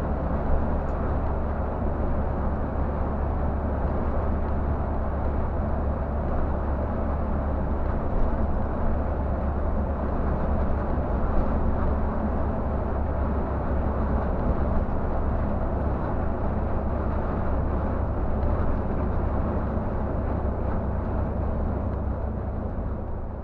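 Scania coach cruising at highway speed, heard from inside the driver's cab: a steady low engine drone under road and tyre noise, fading out near the end.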